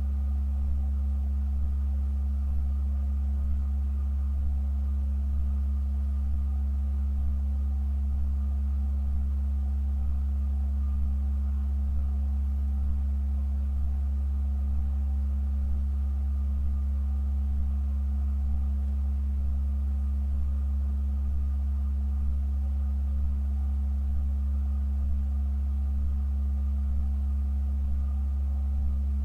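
Pipe organ holding a deep, unchanging low note, with a quieter steady tone above it and faint higher overtones.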